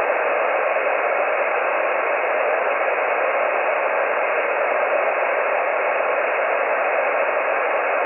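Amateur radio transceiver tuned to the 20-meter band in sideband mode, giving out a steady, thin hiss of band noise with no station transmitting.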